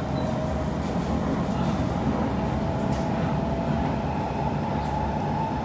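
Interior running noise of a Kawasaki C151 electric multiple unit on elevated track: a steady rumble of wheels and running gear, with a thin whine that grows stronger over the last second or two.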